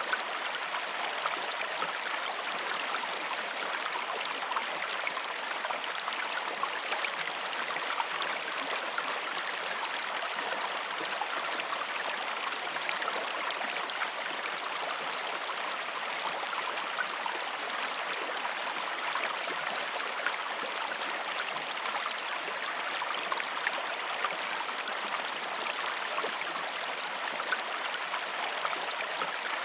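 Stream water running steadily over stones, a continuous rushing with small gurgles and splashes throughout.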